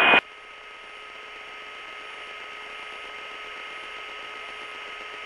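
Steady low hiss with a thin electrical hum. The crew radio and aircraft noise cut off abruptly just after the start, and the hiss swells slightly.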